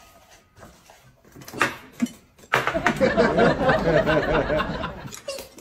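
Laughing voices lasting about two and a half seconds, starting about two and a half seconds in, after a couple of short knocks.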